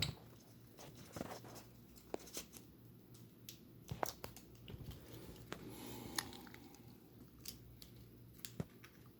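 Faint scattered clicks and crinkles, with a short stretch of rustling about halfway through: a small pet bird's beak nibbling and tugging at paper banknotes.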